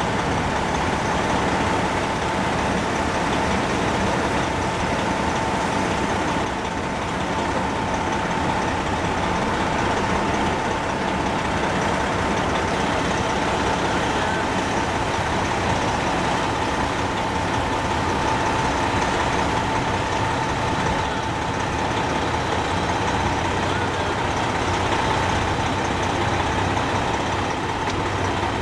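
Semi truck's diesel engine idling, a steady noise with a steady high tone over it.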